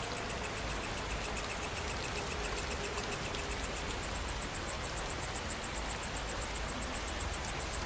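Steady rain falling, an even hiss, with an insect trilling above it in a fast, regular high-pitched pulse.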